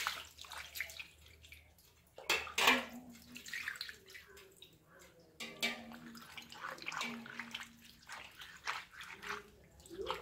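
Water poured from a steel bowl splashing over small fish on a wet stone slab, then wet hands rubbing and scrubbing the fish against the stone in irregular swishes and splashes to strip their silvery outer layer.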